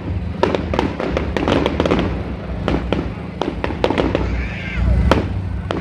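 Aerial fireworks bursting overhead: an irregular run of sharp bangs, about two or three a second, over a steady low rumble.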